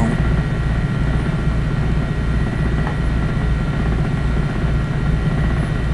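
Steady low drone, fairly loud, with a faint steady high whine over it.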